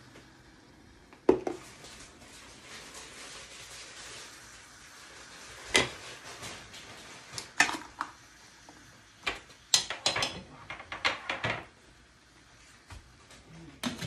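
Metal tongs clanking and scraping against a stainless steel pot as blue crabs are turned over. There is a sharp clank about a second in, single clanks a few seconds apart, then a quick cluster of clinks about ten seconds in. Near the end the metal pot lid is set on.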